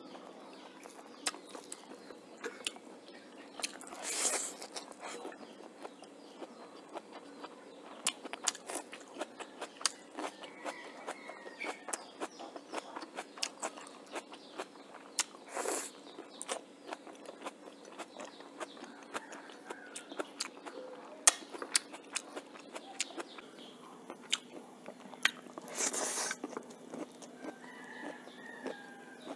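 Close-up eating sounds from a person eating rice and chicken curry by hand: chewing with many small wet mouth clicks and smacks. Three short, louder crunchy bites stand out, about four seconds in, in the middle and near the end.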